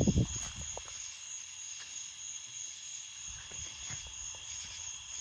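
Steady high drone of insects in two even pitches. A short cluster of low knocks comes at the very start and is the loudest sound.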